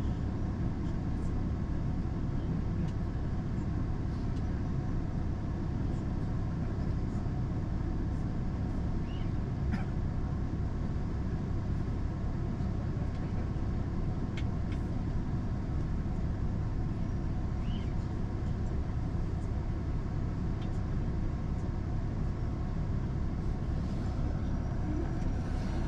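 Steady low rumble of a train running at speed, heard from inside the passenger carriage, with a few faint ticks now and then.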